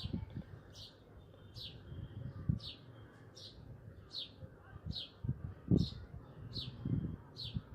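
A bird chirping over and over at an even pace, about one short high chirp a second. Under it are soft irregular scrapes and knocks of a spoon stirring rice in a cooking pot, with one louder knock near the end.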